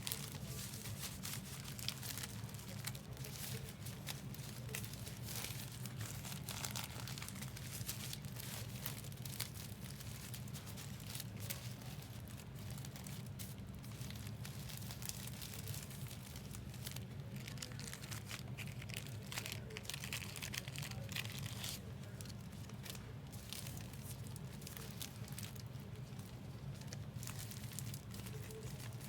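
Trading-card pack wrappers being torn open and crinkled, in a continuous run of crackling and rustling over a steady low hum.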